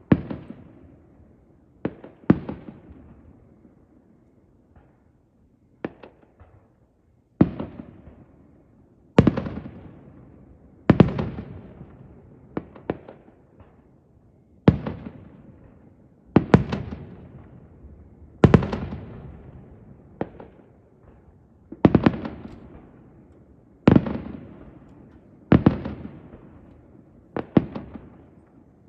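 Aerial firework shells bursting in a steady sequence: about twenty sharp bangs, one to two seconds apart, each trailing off in a rolling echo.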